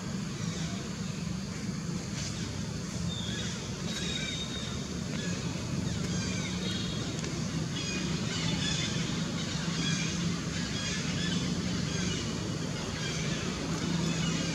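Outdoor background of a steady low hum with scattered short, high-pitched chirps throughout.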